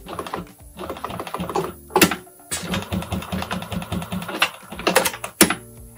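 Juki PLC-2710-7 post-bed walking-foot sewing machine stitching a leather label onto a cap in two short runs, a quick, even clatter of needle strokes with its servo motor almost silent. A few sharp clicks come between and after the runs.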